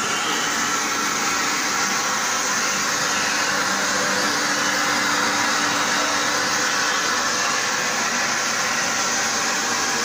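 Stainless-steel grain and bean washing machine running: a steady motor hum under a loud, even rush of water in its washing tank.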